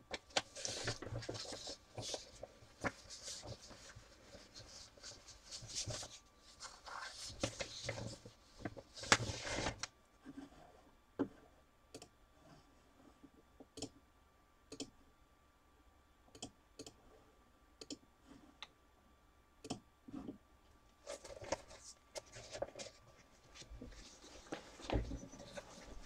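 Rustling and handling noise, with scattered sharp clicks in between.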